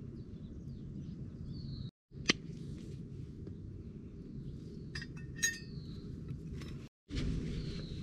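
A sharp click about two seconds in, then a few light metallic clinks that ring briefly around five seconds in, as a small steel griddle plate and an oil bottle are handled, over a steady low outdoor rumble.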